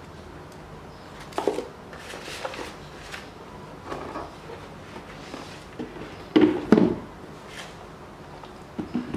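Handling of a cardboard shoebox and its contents: paper cards and tissue rustling, with scattered light knocks, the two loudest close together about six and a half seconds in as the lid goes onto the box.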